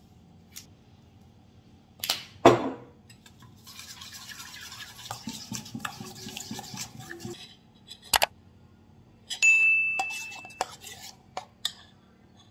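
Metal spoon stirring a thick sauce in a stainless steel bowl: a few sharp clinks against the bowl, several seconds of wet scraping and stirring, then more clinks with a short metallic ring.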